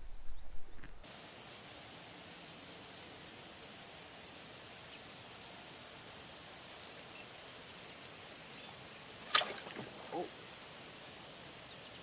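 Steady open-air background by a river, with insects chirping faintly in an even, repeating pulse. One brief sharp sound about nine seconds in stands out above it.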